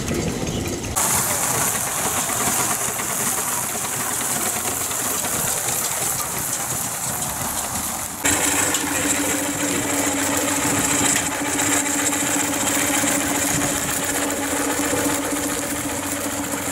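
Miniature steam traction engine running, with a steady hiss; the sound changes abruptly about a second in and again past the halfway mark, after which a steady low hum joins it.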